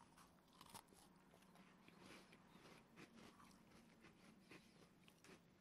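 Faint chewing of a dry, crunchy lemon tartlet biscuit: soft, irregular little crunches and mouth clicks.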